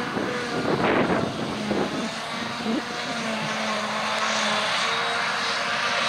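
Claas Jaguar 970 forage harvester running under load as it chops grass and blows it into a trailer, with a John Deere tractor's engine alongside. A steady drone with a high whine, and a louder surge about a second in.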